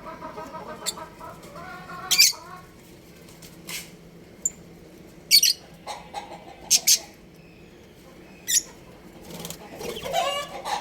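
Budgerigars giving short, sharp, high-pitched chirps every second or two. Lower, drawn-out pitched calls sound through the first couple of seconds and again near the end.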